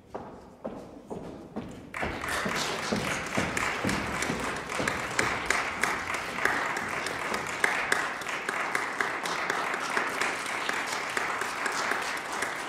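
Audience applauding: a few scattered claps at first, building to full, steady applause about two seconds in.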